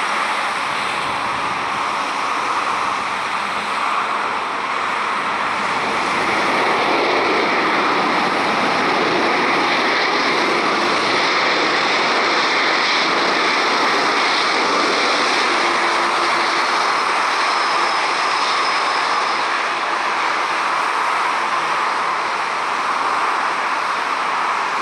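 Jet engines of a Boeing 737 airliner running during its landing roll-out just after touchdown: a steady rushing roar that grows louder a few seconds in.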